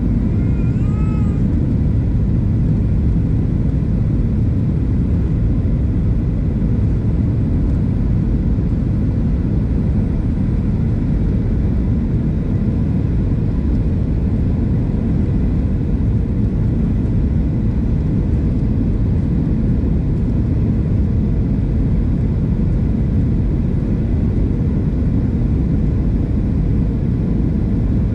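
Steady low rumble of a Boeing 737-700 airliner's cabin noise, its engines and airflow heard from inside the cabin.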